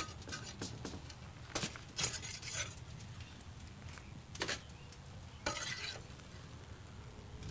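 Metal spatula scraping under chicken thighs on a wire grill grate, prying them loose and lifting them off, in several short scrapes and clinks.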